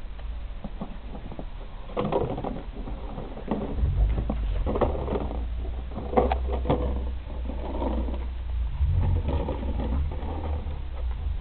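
Puppies playing with an empty plastic canister: bursts of hollow plastic knocks and rattles as they grab, shake and drag it, with a low rumble underneath from a few seconds in.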